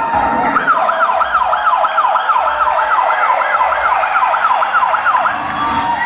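A wailing siren sound effect in a dance routine's music mix, played over a hall's sound system, rising and falling rapidly about three times a second. Low bass thumps come about once a second beneath it, and the siren cuts off near the end.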